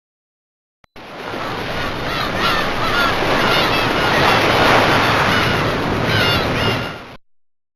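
Fly-Bird v09 mobile phone ringtone of ocean surf with bird calls: a steady wash of surf that begins about a second in, swells and fades out near the end, with short repeated calls over it.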